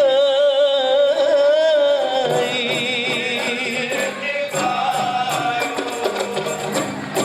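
Qasidah music: a male vocalist sings long, wavering, ornamented notes in Arabic, and hand percussion enters with a steady beat about halfway through.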